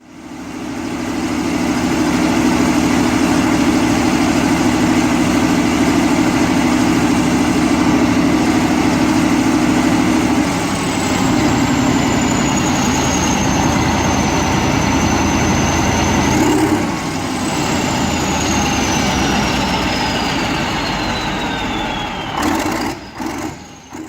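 Perkins 3008-TAG4 V8 turbocharged diesel engine running steadily. About ten seconds in the sound changes and a high whine comes in, falling slowly in pitch. It rises once briefly, then slides down again over several seconds.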